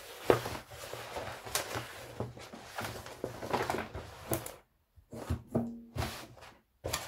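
Crinkling and crackling of a diamond painting canvas and its plastic protective film as hands smooth it flat, with irregular crackles and light taps that thin out in the second half.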